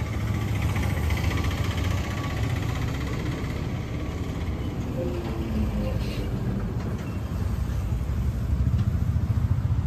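Street traffic noise: the steady low rumble of a vehicle engine running nearby.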